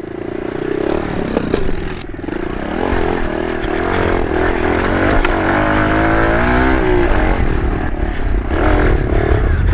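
Kawasaki KLX110 pit bike's small single-cylinder four-stroke engine running under throttle while riding over dirt. Its pitch rises through a rev about halfway through, then drops back.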